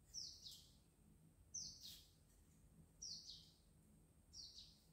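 Faint scratchy scrapes of a kitchen knife blade on garlic cloves as they are peeled, coming in pairs of short strokes about every second and a half.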